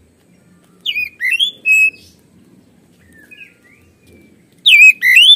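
Oriental magpie-robin singing: loud whistled phrases of sliding notes about a second in and again near the end, with a few soft notes between.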